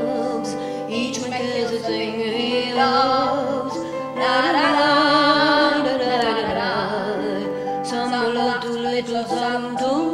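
Music: a singing voice with wide vibrato over instrumental accompaniment, the voice swelling strongly about four seconds in.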